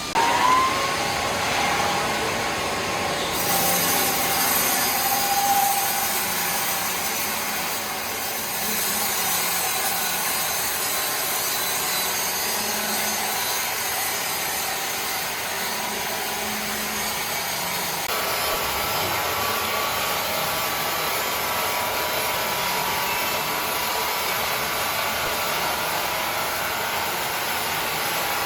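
Power saw cutting through timber: a steady, dense rasping noise that begins suddenly with a brief rising whine, and changes character abruptly about three seconds in and again just past the halfway point.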